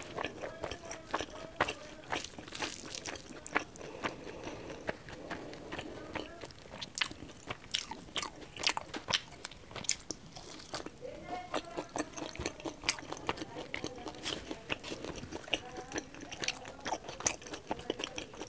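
Close-miked chewing of pork curry and rice eaten by hand: wet smacking, sharp mouth clicks and crunches coming several times a second.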